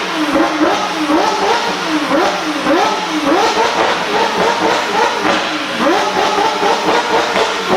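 McLaren 720S twin-turbo V8 with catless Inconel downpipes and a titanium X-pipe exhaust, revved over and over: the pitch climbs and then drops sharply, roughly once or twice a second.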